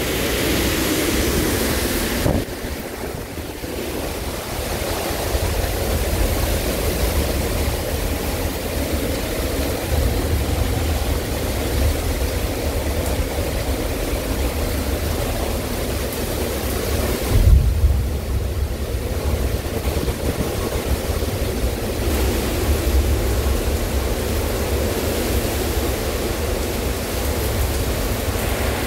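Derecho winds and driving rain: a steady, loud rush of wind and rain with heavy wind rumble on the microphone. It eases for a moment about two seconds in, and a hard gust hits the microphone just past halfway.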